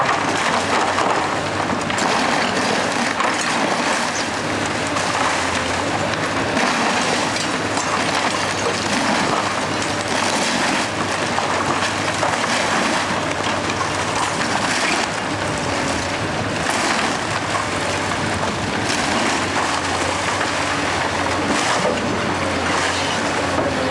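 Komatsu hydraulic excavator's engine running steadily under load as its bucket tears apart a house's wooden wall, with repeated crashes and cracking of splintering wood and falling debris.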